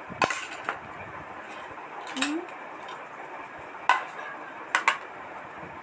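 Eating utensil clinking against a plate while the last of a meal is eaten quickly: about six sharp, irregular clinks.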